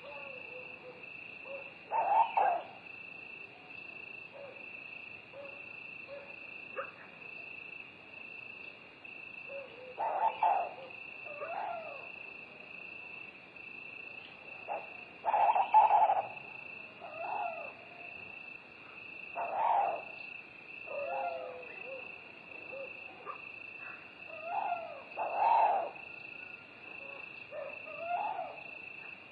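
Night-forest ambience: a steady, high chorus of crickets, with an owl hooting over it every few seconds and softer calls in between.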